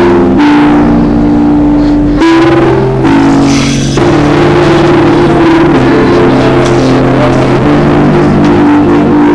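Loud music playing, with held notes that change every second or so.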